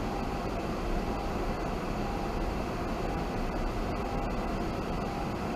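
Steady cabin noise of a car driving at walking pace through a flooded street: an even low rumble with a hiss over it.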